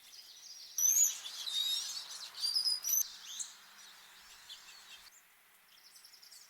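Small songbirds at a feeder calling with sharp, high chirps, loudest in a flurry during the first few seconds, over a steady background hiss. A fast, faint trill comes near the end.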